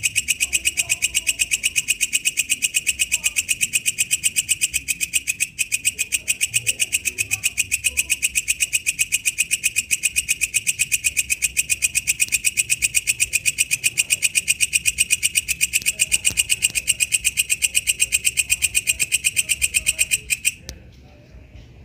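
Walang kecek insect stridulating: a loud, shrill, fast-pulsed call of about six even chirps a second that cuts off suddenly shortly before the end.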